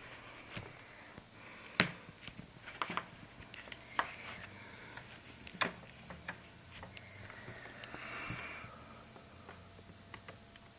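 Scattered light clicks and taps of hands handling a laptop's screen panel and its plastic parts, with a short soft rustle about eight seconds in.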